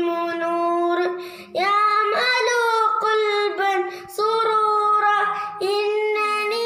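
A boy singing solo with no accompaniment, holding long steady notes with short breaks for breath between phrases.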